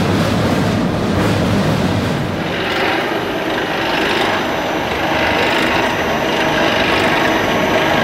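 Continuous mesh-belt cocoa bean roaster running, with a steady mechanical noise of its machinery and conveyor.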